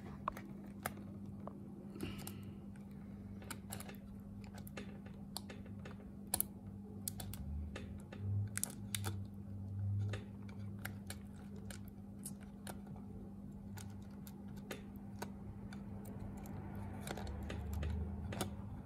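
Scattered small clicks and taps of a black plastic prying tool and cable connectors being pressed and seated on a MacBook Pro logic board, with a few soft handling bumps, over a steady low hum.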